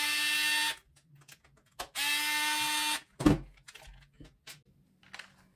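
Small cordless electric screwdriver running in two short bursts of about a second each, with a steady whine, backing out the safety screws from a hot glue gun's plastic housing. A sharp knock follows, then a few light clicks of handling.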